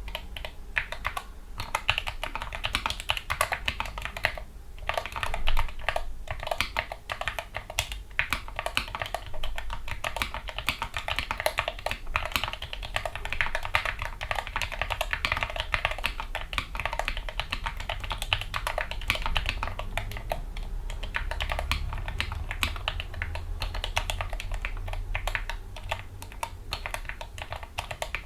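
Typing on a Gamakay MK61 mechanical keyboard with lubricated Gateron Yellow linear optical switches and foam dampening: fast, continuous key presses with a brief pause a few seconds in.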